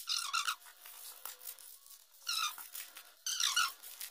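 Rubber glove squeaking as it rubs against glossy trading cards and a foil pack wrapper, in three short runs of high squeaks.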